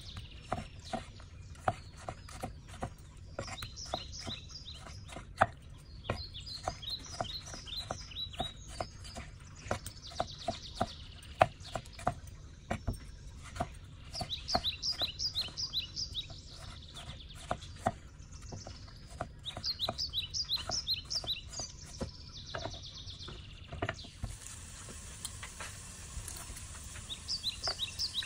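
Hand-forged steel chef knife slicing and dicing tomatoes on a wooden cutting board, its edge knocking the board in irregular taps. Small birds chirp in quick repeated series in the background.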